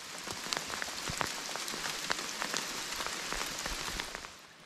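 Hail falling hard, a dense patter of many small ticks that fades away near the end.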